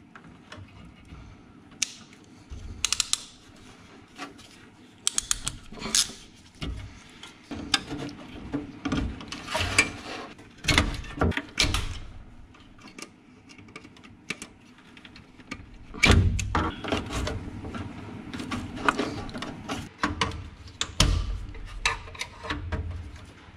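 Irregular clicks, knocks and rattles of a hand tool and wire connectors being worked onto a new electric-furnace sequencer's terminals, with a few heavier thumps from handling.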